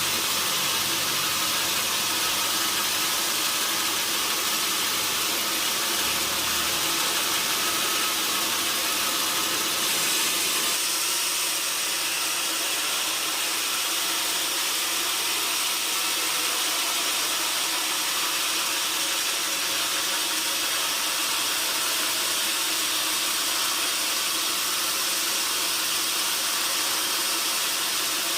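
Sawmill saw running, a steady high hiss with faint underlying tones that shifts slightly about ten seconds in.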